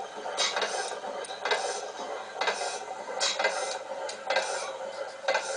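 1896 T. Melvin two-horsepower town gas engine running slowly, with a metallic clatter about once a second from its valve gear and exhaust beat.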